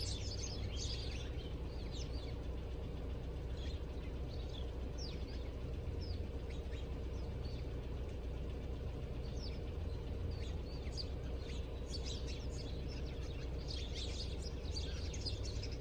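Many small birds chirping in a pile of broken branches: short, high chirps overlapping, busiest in the last few seconds, over a steady low rumble.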